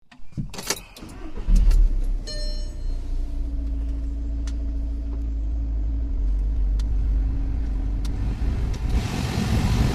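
VW Caddy Mk3 engine starting: a couple of clicks, then the engine catches about a second and a half in and settles into a steady idle, with a rising rush of air near the end.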